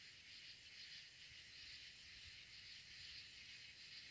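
Near silence, with faint, steady chirring of night insects such as crickets.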